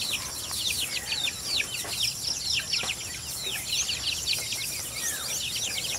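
A flock of young chicks peeping nonstop: many short, high, falling peeps overlapping one another, several a second.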